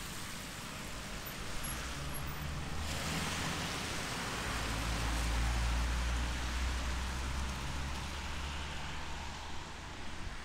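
Steady rain, with a motor vehicle passing on a wet road: a low engine rumble and tyre hiss that build from about a second in, peak around the middle, and fade near the end.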